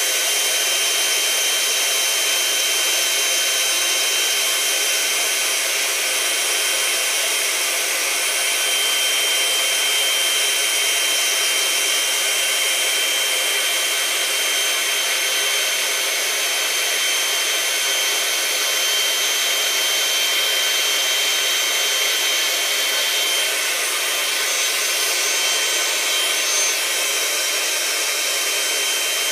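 Small electric air pump running steadily with a thin high whine, sucking the air out of a six-foot vinyl beach ball to deflate it.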